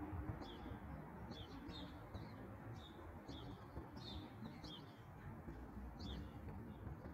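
Small birds chirping: short, high calls repeating irregularly, about one or two a second. They are faint, over a low background rumble.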